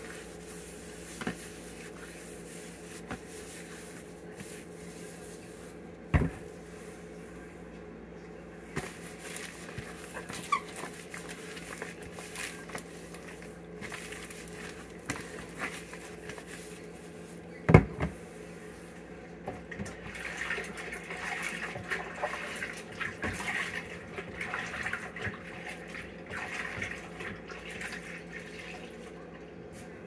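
Food jars and plastic containers being handled, wiped and set down on a kitchen countertop: scattered light clicks, two sharp knocks about six seconds in and just past the middle, and a longer stretch of rubbing and rustling over the latter part, above a steady hum.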